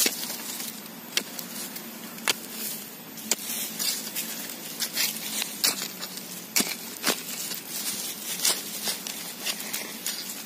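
A machete blade chopping and stabbing into soil and bamboo roots: irregular sharp strikes, coming more often in the second half, over a faint steady low hum.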